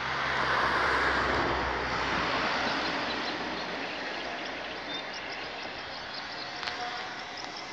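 Rushing noise of a passing vehicle with a low engine hum, loudest at the start and fading away.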